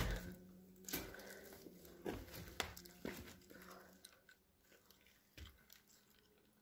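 Footsteps crunching on plaster rubble and broken wood: a few sharp crunches in the first three seconds or so, then only faint scattered ticks.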